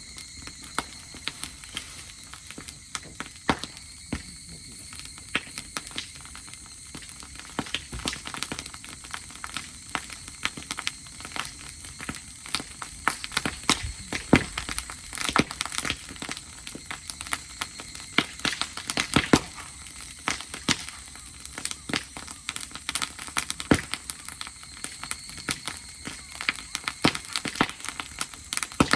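Dry-grass campfire crackling and popping, a dense run of irregular sharp cracks and snaps.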